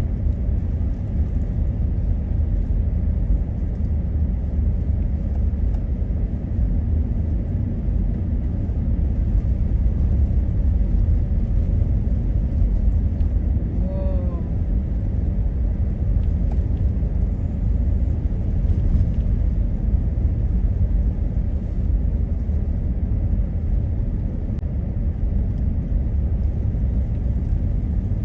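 Steady low rumble of a truck driving on a snow-covered road, heard from inside the cab: engine and tyre noise at an even pace.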